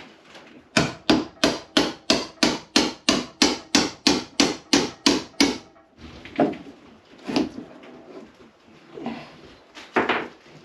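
Hammer blows in a quick steady rhythm, about four a second for some five seconds, then a few scattered knocks.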